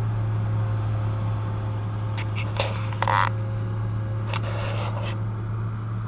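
Steady low hum inside a parked car with its engine running, with a few brief faint clicks and rustles in the cabin.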